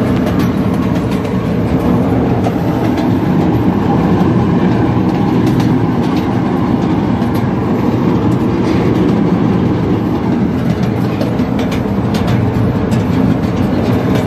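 Miniature ride-on train rolling along its track, heard from inside the caboose: a steady rumble of the wheels on the rails with scattered light clicks.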